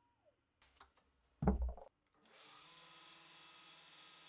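A few light clicks and a thud of metal parts on a wooden bench, then a belt grinder starts running with a steady hiss as a rusty pistol barrel is held against its belt.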